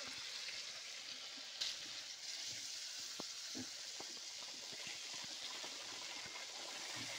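Drained, parboiled urad dal sizzling in a nonstick pan of tomato-and-spice masala as it is stirred with a silicone spatula: a steady faint hiss with scattered soft ticks from the stirring.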